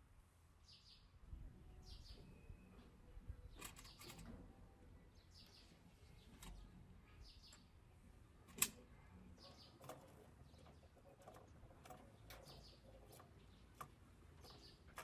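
Faint taps and clicks of small toy motorcycle model parts being set down on a wooden table, with one sharper click about eight and a half seconds in. Birds chirp faintly in the background.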